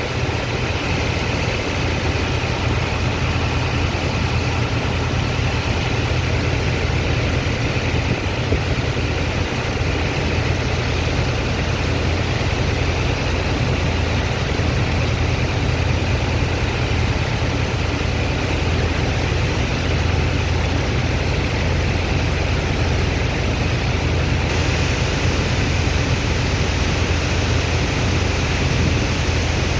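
Heavy diesel engine of a sand dredger and its pump running steadily, a constant low drone with an even rushing hiss above it.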